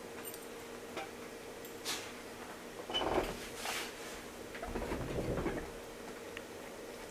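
Dog shifting and settling in a fabric dog bed: a few soft clicks, then rustling and muffled bumping about three seconds in and again, longer, around five seconds.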